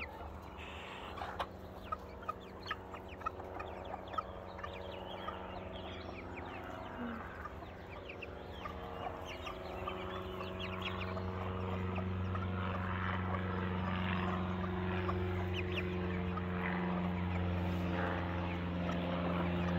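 A flock of young chicks cheeping and clucking as they forage, in many short high calls. From about halfway in, a steady low engine drone builds up beneath them and becomes the loudest sound.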